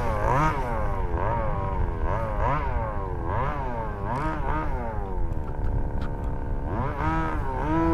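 A 1/5-scale gas RC buggy's small two-stroke engine revving up and down over and over, about once a second. About five seconds in it holds a steadier, lower note, then revs up again near the end.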